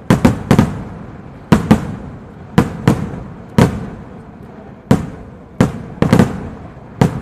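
Festival rockets (cohetes) exploding, about a dozen loud sharp bangs at uneven intervals, some in quick pairs, each trailing off in an echo.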